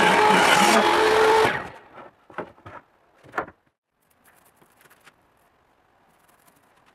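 Table saw running with a steady whine as it rips a hardwood board, cutting off about a second and a half in. A few short knocks follow, then faint brushing as glue is spread along the board edges.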